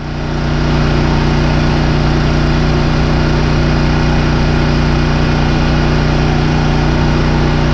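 Portable open-frame generator running steadily under electrical load: a constant engine drone that grows louder in the first second and then holds even. It is the sound of a generator holding its output at 119 volts and 60 hertz.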